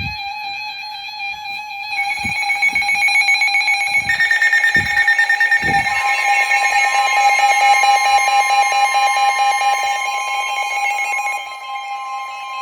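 Electronic weather-alert tones: several steady beeping tones layer in one after another about two, four and six seconds in, and most drop away between ten and eleven seconds in, leaving one tone sounding, ahead of a new severe thunderstorm warning on NOAA Weather Radio. A few low thumps sound in the first six seconds.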